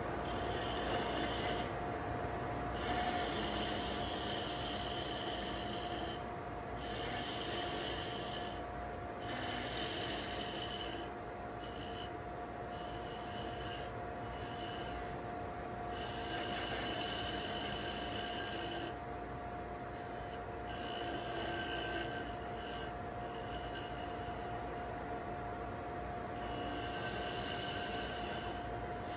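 Laguna wood lathe running with a steady whine while a parting tool scrapes and cuts a spinning curly cherry handle, the cutting coming and going in spells of a few seconds with short breaks. The end of the handle is being turned down to a 3/8-inch tenon to fit a brass hammerhead.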